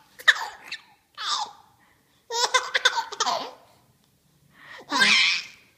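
A baby laughing in four short bursts, the longest a run of quick, pulsing laughs lasting about a second.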